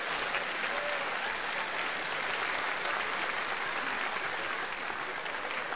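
Theatre audience applauding, a dense steady clapping that eases off toward the end.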